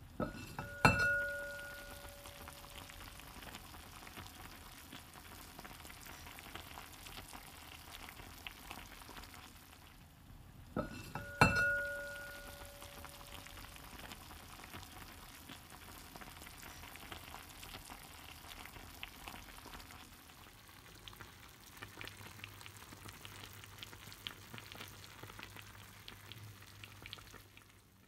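Tagine of cauliflower and vegetables simmering with a steady crackling sizzle. Its glazed ceramic lid clinks with a short ring twice, about a second in and again at about eleven seconds.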